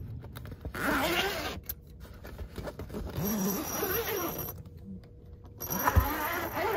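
Two-way zippers on the canvas tent wall of an Ursa Minor J30 pop-up camper being unzipped in three long pulls, with short pauses between them.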